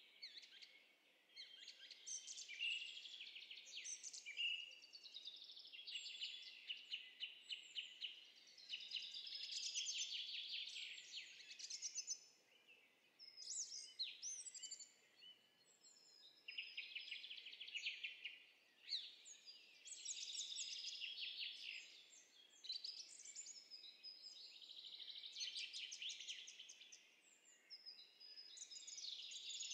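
Songbirds singing, a bird-sound recording laid over as a sound effect: rapid trills and chirps in phrase after phrase, with short pauses between them.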